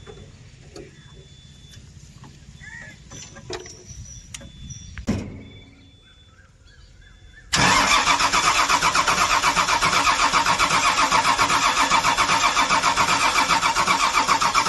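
Small clicks and knocks of an electrical connector being handled and plugged in, then about halfway through the starter motor of a Komatsu PC210-8 excavator's diesel engine kicks in suddenly and cranks it in an even pulsing rhythm. The engine does not fire: it turns over but will not start, and the mechanic suspects the ECM.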